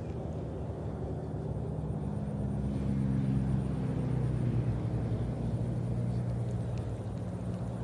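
An engine running steadily as a low hum, its note dropping slightly about three seconds in.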